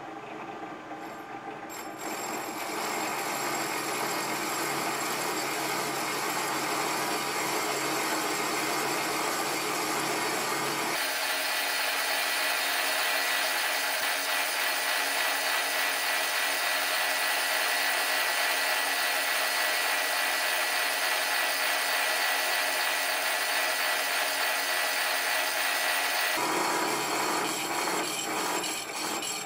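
Wasino LRS-55A lathe cutting a V groove into the end face of a metal workpiece: the tool bites in about two seconds in, then a loud, steady scraping cut with steady tones running through it. About eleven seconds in the cut sounds higher and thinner, because the footage runs at double speed, and it returns to normal speed near the end.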